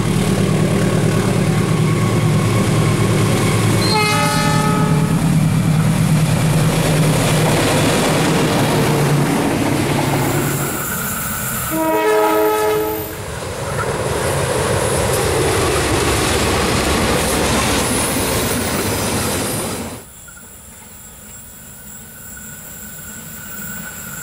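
Passing KAI diesel locomotive and passenger train: the engine drones loudly along with wheel-on-rail noise. The horn sounds twice, briefly about four seconds in and again about twelve seconds in. Near the end, after a cut, a train is heard more faintly on a curve with a steady high wheel squeal.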